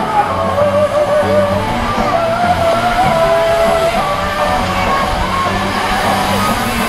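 Music with a singing voice, a wavering melody over a steady low beat.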